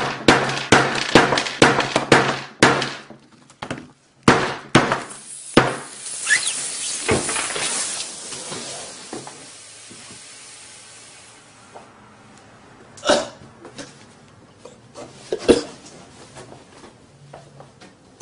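Hammer blows on a Samsung Galaxy S5 smartphone, about three a second, then a few more. Then the phone's punctured lithium-ion battery hisses as it vents, loud at first and fading out over several seconds, followed by a few scattered knocks.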